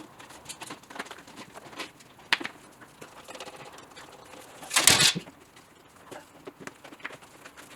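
A windscreen trim piece being handled and pushed into place: small scattered clicks and taps, with one louder scraping knock about five seconds in.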